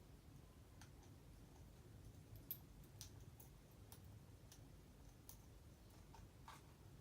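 Near silence: room tone with a scattering of faint, irregular sharp clicks, one loudest about two and a half seconds in.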